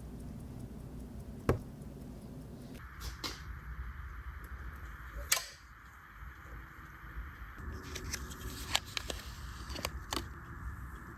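Sharp clicks and taps of small watchmaking tools on a pocket watch movement, a few single clicks standing out, with a faint quick ticking from the running watch movement in the first few seconds.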